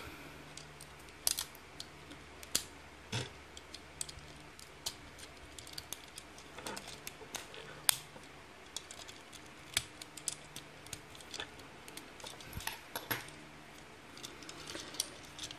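Irregular light clicks and taps of small hard plastic toy parts being pried with a thin metal tool and handled, as the wheels are worked out of a transforming robot figure's vehicle section; a few clicks are sharper than the rest.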